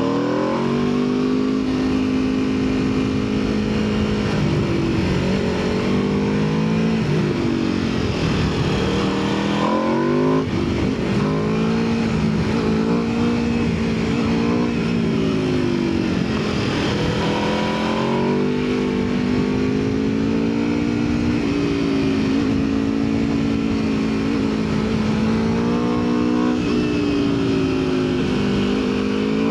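Aprilia RSV4 superbike's V4 engine under way, its note holding steady for stretches, then dropping and climbing again several times as the revs change.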